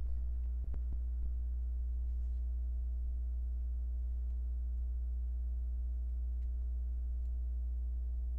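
Steady low electrical hum with several faint steady tones above it, and a few faint clicks in the first second or so.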